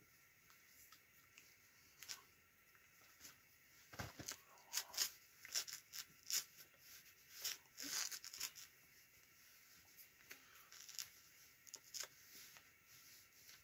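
Rustling of a puffy winter jacket's sleeves and soft clicks of hands moving as someone signs, in short irregular bursts that are busiest in the middle.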